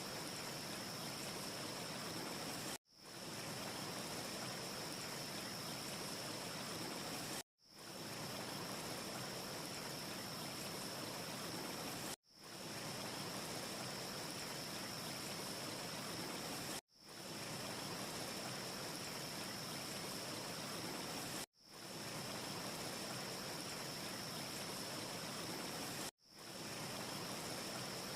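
Steady, even rushing ambience noise with a faint high steady tone in it, cutting out sharply about every four to five seconds and fading back in within about half a second: a short noise loop repeating with a gap at each seam.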